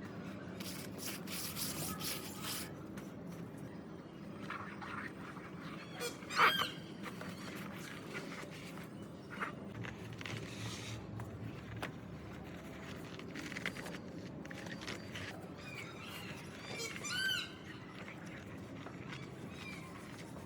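Two short, high animal calls that rise and fall in pitch, one about six seconds in and one near seventeen seconds, over steady background noise with a few scattered clicks.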